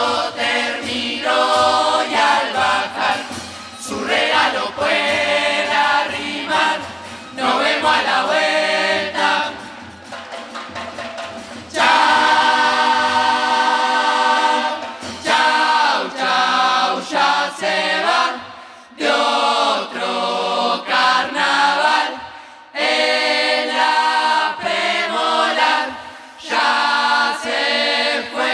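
Murga chorus singing in harmony, many voices together, in phrases separated by short breaks, with a long held full chord about twelve seconds in.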